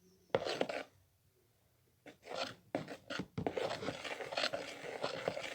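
Slime mixture being stirred in a bowl with a utensil, scraping strokes against the bowl as the activator is worked in: one short stroke just after the start, then a run of strokes from about two seconds in.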